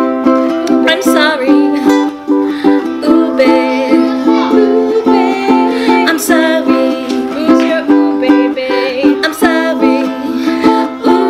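A ukulele being strummed, playing a run of chords.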